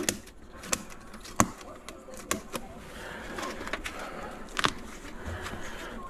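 Hand cutters snipping through the tape and insulation wrapped around an air conditioner's refrigerant pipes: about six sharp snips at irregular intervals, with rustling of the torn wrapping from about halfway through.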